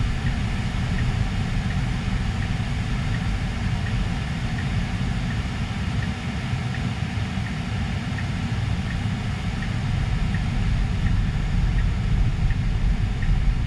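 Low, steady road and tyre rumble heard inside the cabin of a 2023 Tesla Model 3 RWD as it drives along. No engine is running, since the car is electric.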